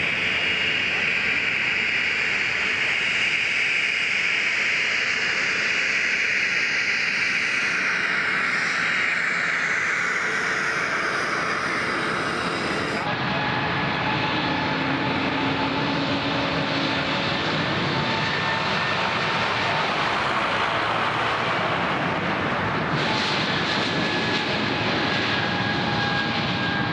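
Airliner jet engines on the airfield: a continuous engine whine that slowly falls in pitch over the first dozen seconds. About thirteen seconds in the sound changes abruptly to the steadier whine of a Swiss Airbus A220's engines as it taxis close by.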